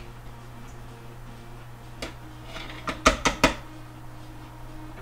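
Metal ladle knocking against the colander and food processor bowl while scooping dry yellow split peas: one knock about two seconds in, then a quick run of four or five knocks about a second later.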